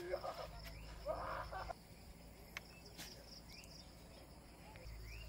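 Rural outdoor ambience: a steady high insect buzz with short rising bird chirps. Faint distant human voices come in the first couple of seconds.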